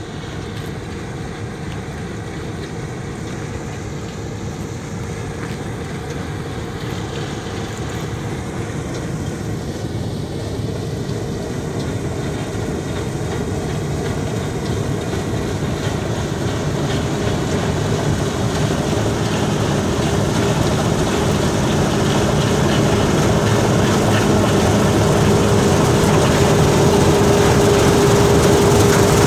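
Claas Lexion 770 TT tracked combine harvesting soybeans through a Geringhoff TruFlex Razor draper header: a steady engine and threshing drone with a steady whine, growing louder as the machine comes closer.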